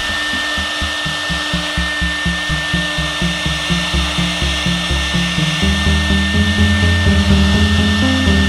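CNC router spindle running with a steady high whine and hiss as its end mill routes a slot through a wood board. Background music with a steady beat runs underneath.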